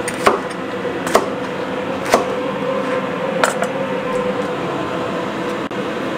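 Chinese cleaver chopping on a plastic cutting board: four sharp knocks roughly a second apart, over a steady background hum.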